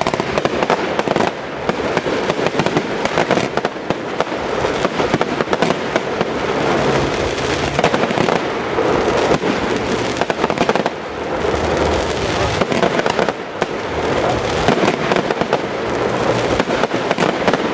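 Fireworks display: many shells bursting and crackling in rapid, overlapping succession with no pause, a dense closing barrage.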